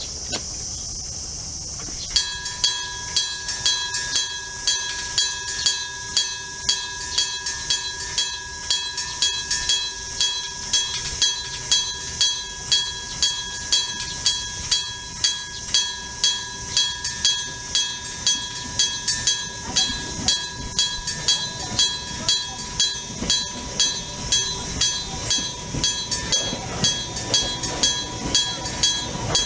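Nippon Signal EG1003 electric level-crossing bell, powered by 100 V AC, starts ringing suddenly about two seconds in. It keeps up a continuous fast ringing that pulses about twice a second.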